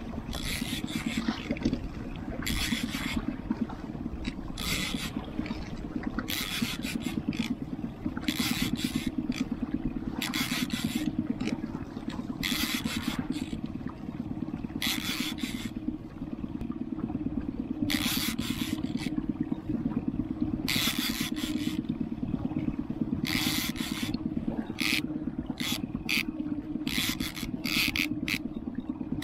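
Small skiff's outboard motor running steadily while trolling, with short bursts of noise every second or two on top.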